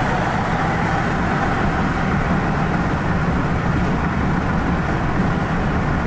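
Steady road and engine noise of a moving car heard from inside its cabin: an even, low rumble with no separate events.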